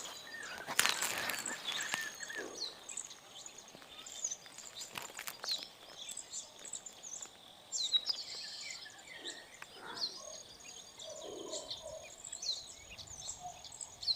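Small birds chirping over and over in short, high calls, with some rustling and a few sharp knocks in the first couple of seconds.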